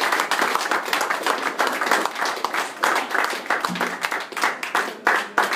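Audience applauding, many hands clapping at the end of a song.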